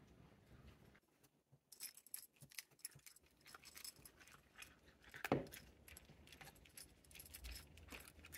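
Light clinking and rattling of small hard objects, with one louder clack about five seconds in.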